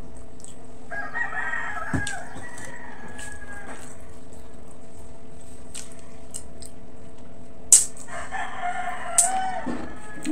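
Two long, drawn-out pitched calls, one about a second in and one near the end, each lasting two to three seconds, over a steady low hum. Scattered sharp clicks fall between them, the loudest about three quarters of the way through.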